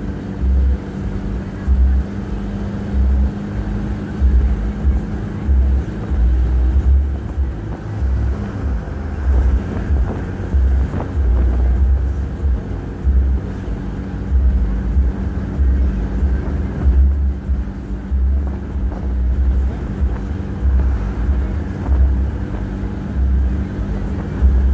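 Road noise inside a moving car on a highway: a steady engine and tyre drone with a low rumble that surges and drops every second or so.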